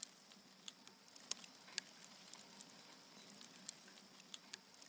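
Wood fire crackling faintly: scattered, irregular pops and snaps over a soft steady hiss.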